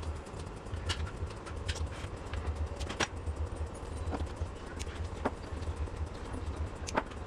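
Scattered light clicks and taps of wires and small plastic connectors being handled, about half a dozen at uneven intervals, over a low, unsteady rumble.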